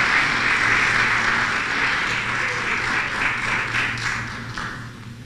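Audience applauding a speaker to the podium. The clapping thins to scattered claps and dies away near the end.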